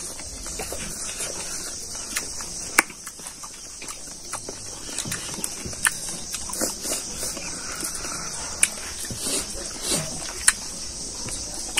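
People chewing and smacking their lips while eating by hand, with scattered sharp smacks and clicks. A steady high-pitched hiss runs underneath.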